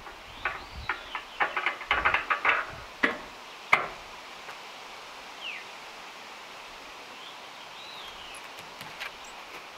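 A run of sharp metal knocks and clicks from a log being clamped and set on a band sawmill's bed, coming fast around two seconds in and ending with one harder knock before four seconds. After that a bird chirps a few times.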